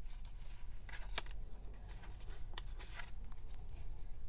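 Paper being handled: the pages of a handmade paper journal folio are turned and pressed, giving a few short rustles and light taps scattered through.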